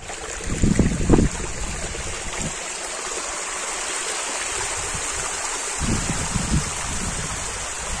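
Steady rush of flowing water, with a few low rumbles about a second in and again near six seconds in.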